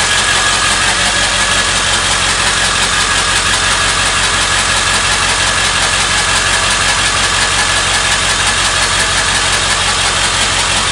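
Ford 7.3 Power Stroke V8 turbodiesel idling steadily with a rapid, even ticking.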